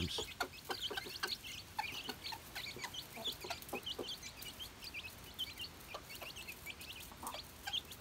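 A hen with her brood of young chicks feeding on mealworms: many short, high peeps from the chicks throughout, with a few low clucks from the hen.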